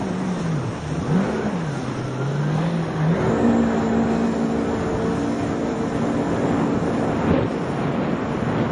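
Jet ski engine running under throttle, its note dipping and rising for the first few seconds, then climbing about three seconds in to a steady higher pitch, over the constant rush of water.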